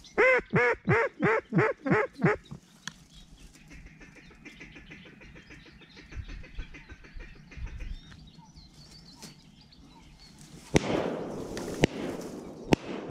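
Duck quacking: a quick run of seven loud quacks, each dropping in pitch, in the pattern of a hen mallard's descending call. About eleven seconds in, a sudden sharp crack and a rush of noise, with two more sharp clicks after it.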